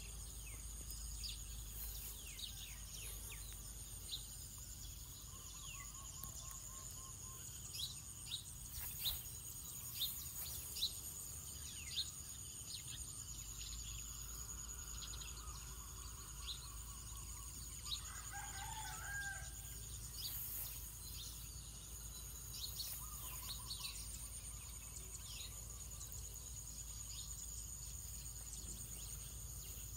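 A rooster crows once, about two-thirds of the way through, over continual small-bird chirps and a steady high insect whine.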